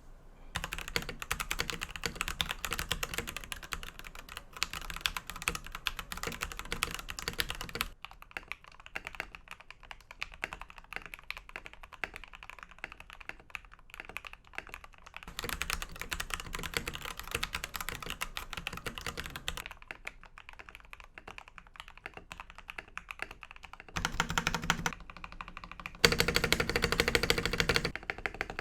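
Royal Kludge RK87 mechanical keyboard being typed on: lubed linear red switches under PBT keycaps, the case dampened with PE foam, EVA foam and a tape mod. Stretches of fast continuous typing alternate with slower, sparser key presses, and the loudest, densest typing comes near the end.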